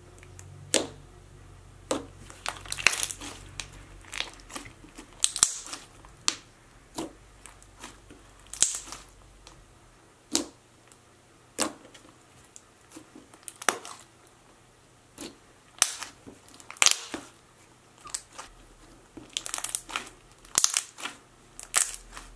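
Thick, clicky slime scented like Cinnamon Toast Crunch being squeezed, pressed and stretched by hand, giving irregular sharp sticky clicks and pops about once or twice a second.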